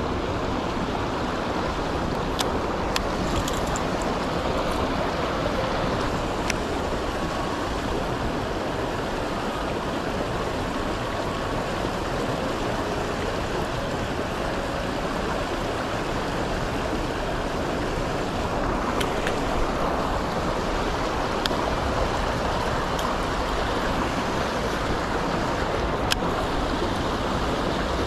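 Strong wind rushing and buffeting the microphone, a steady noise with a deep rumble, with a few faint clicks.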